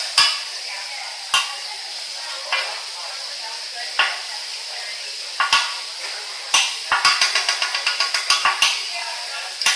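Food sizzling on a hot teppanyaki griddle, with sharp clacks of metal spatulas striking the griddle every second or so, then a quick run of rapid taps for about two seconds near the end.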